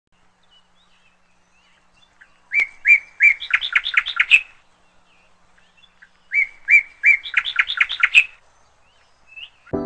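A bird singing two phrases a few seconds apart. Each phrase is a few even notes followed by a quick run of notes climbing in pitch.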